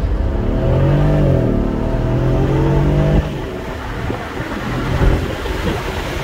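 Mercedes-Benz automatic car heard from inside the cabin, accelerating hard at full throttle from a standstill. The engine note climbs, dips at an upshift about a second and a half in, climbs again, then drops sharply about three seconds in, leaving a lower engine sound under tyre and wind noise.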